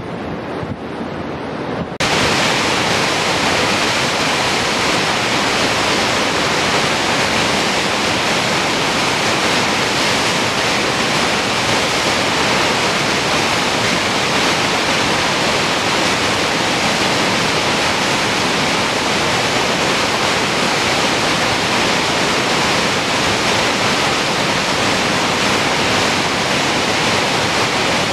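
Turbulent white water of a fast, swollen river rushing, a loud steady rush with no let-up. A quieter, duller water-and-wind sound in the first two seconds switches abruptly to it, and it cuts off sharply at the very end.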